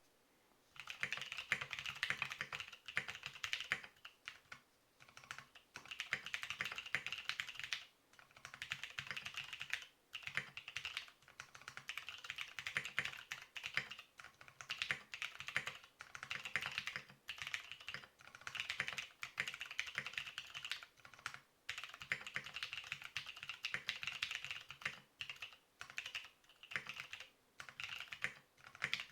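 Typing on a Frog TKL mechanical keyboard with Greetech Brown tactile switches lubed with Molykote EM-30L. The keystrokes come in fast runs of a few seconds each, broken by brief pauses.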